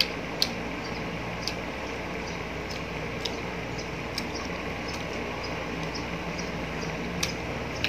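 Chewing mouth sounds of someone eating ripe mango with bagoong: scattered wet clicks and lip smacks over a steady low background hum.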